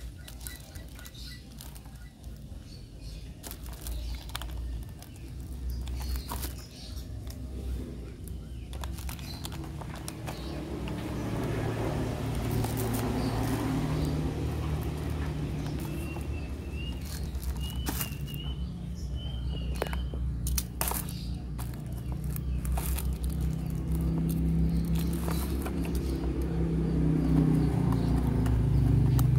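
Clicks and crackles of a cardboard box and plastic packaging being handled, over a motor vehicle engine running in the background that grows louder from midway to the end. A bird chirps a few times in between.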